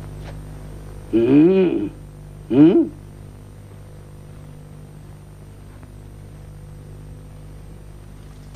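A man's voice shouting twice, a longer call about a second in and a short one just before three seconds, each rising and falling in pitch, over a steady mains hum.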